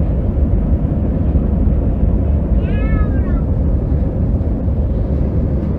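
Steady low roar of an Airbus A319's engines and airflow, heard inside the cabin over the wing during the climb just after takeoff. About halfway through, a brief high wavering cry rises and falls over it.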